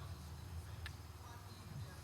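Quiet room tone with a steady low hum, and a single faint click a little under a second in.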